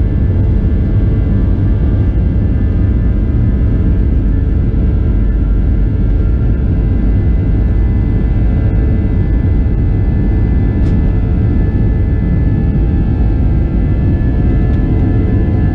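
Boeing 737-700's CFM56-7B jet engines heard inside the passenger cabin: a steady, loud rumble with several steady whining tones above it.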